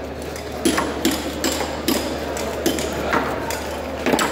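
Sharp knocks of heavy knives chopping through fish onto cutting boards, two or three a second, over a steady low hum.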